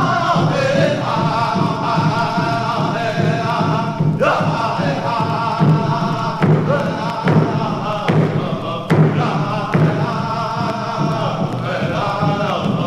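Background music: several voices chanting together over a slow, steady drumbeat.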